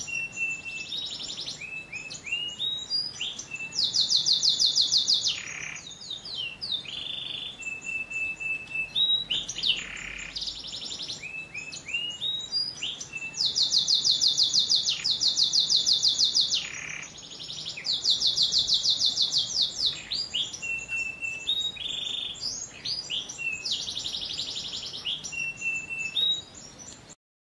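Domestic canary singing a long song of fast rolling trills mixed with short whistled notes and chirps. The song cuts off suddenly near the end.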